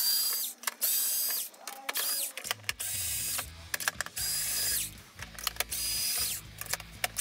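Cordless pen-style screwdriver running in short bursts with a steady high whine, about six runs of under a second each, as it backs screws out of an RC tank's plastic hull.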